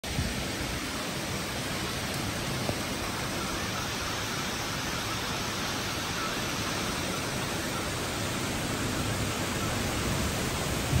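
Heavy thunderstorm downpour: a dense, steady hiss of rain, swelling slightly toward the end.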